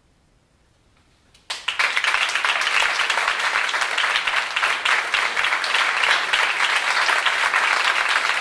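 Near silence for about a second and a half, then audience applause starts suddenly and goes on steadily.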